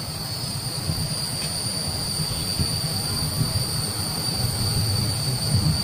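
Outdoor ambience: a steady high-pitched drone holding one pitch, over a low, uneven rumble.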